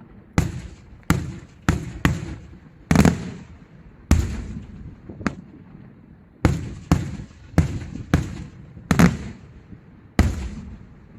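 Fireworks shells from a Luigi Di Matteo display exploding in the air: about a dozen loud bangs at uneven intervals, sometimes two close together, each followed by a rolling echo.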